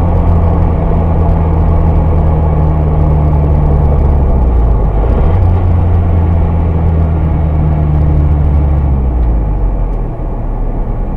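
Steady low drone of a car's engine and road noise inside the cabin while cruising. The drone shifts in pitch about four and a half seconds in and eases off near the end.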